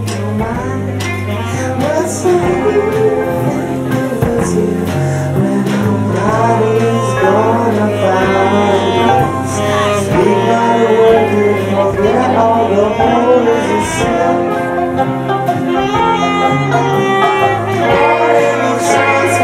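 A live band playing with several voices singing: electric guitars, banjo, saxophone and drums under the singing.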